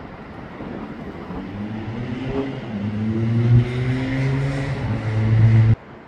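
A road vehicle's engine accelerating, growing steadily louder, its pitch climbing, dipping once and climbing again. It cuts off suddenly near the end.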